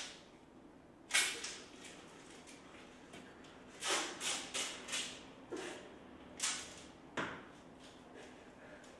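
Adhesive tape being pulled off its roll in short, sharp rips: one, then a quick run of four, then a few more spaced out.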